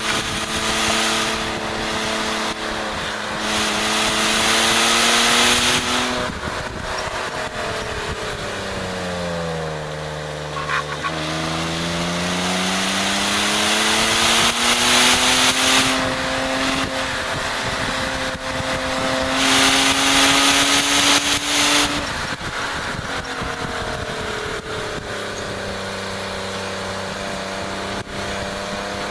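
BMW E36 325is's straight-six engine pulling hard around a racetrack. The revs climb, fall steeply as the car slows and shifts down about a third of the way in, then climb again, fall once more and hold. A rush of wind noise swells each time the speed is highest.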